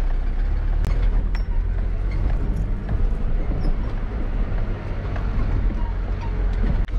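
4WD driving slowly over a rough sandy track: a steady low rumble of engine and tyres, with scattered clicks and knocks from the vehicle.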